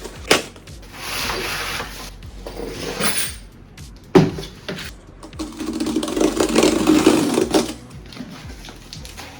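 Objects being handled: rubbing and scraping, with two sharp knocks, one just after the start and one about four seconds in. The longest scraping comes after the second knock.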